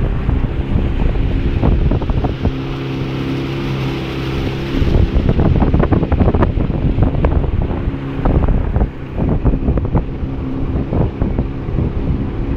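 Small motorboat's engine running steadily while underway, with wind buffeting the microphone in gusts that grow heavier about five seconds in.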